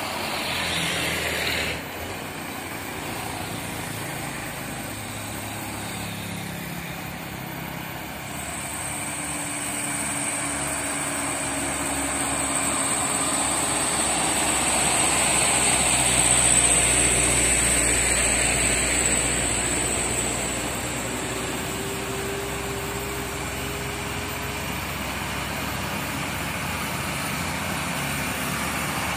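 Road traffic on a steep climb: motorcycle and car engines and tyres passing close, swelling to the loudest point about halfway through, then settling. A thin, steady high whine runs through the middle of it. A heavy truck engine is coming up the grade near the end.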